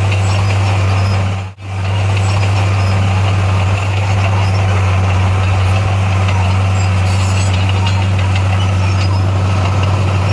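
Diesel engine of a D58A bulldozer running at a steady speed, a constant low drone. About a second and a half in, the sound cuts out for a split second and comes straight back.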